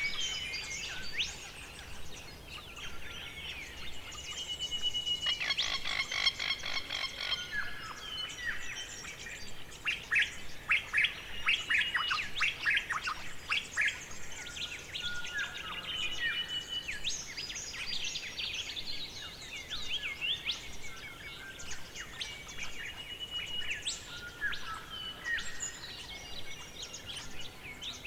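Several songbirds chirping and singing over a faint steady forest background. A fast, evenly pulsed trill comes about five seconds in, and a dense run of chirps follows near the middle.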